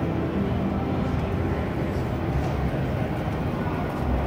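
Steady crowd hubbub in a large exhibition hall: indistinct distant voices over a low, even rumble.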